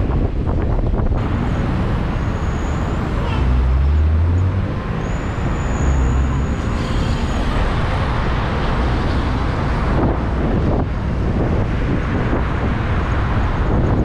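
Steady road and traffic noise heard from a car moving through city traffic, with engine and tyre rumble and some wind on the microphone.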